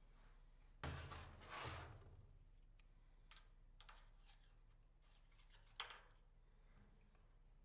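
Near silence with a few faint, short scrapes and clicks: two rasps about a second in, then three sharp ticks spread over the next few seconds. These are the sounds of metal parts or tools being handled at the workbench.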